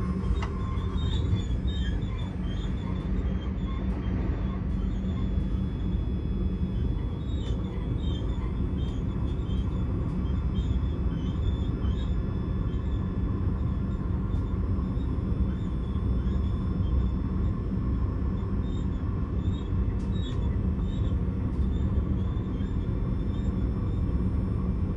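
A train in motion heard from inside the passenger car: a steady running rumble of wheels on track. Brief high, wavering squeaks come and go during roughly the first half.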